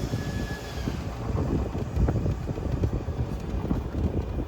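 Golf cart riding along: a steady low rumble with frequent small knocks and rattles from the ride.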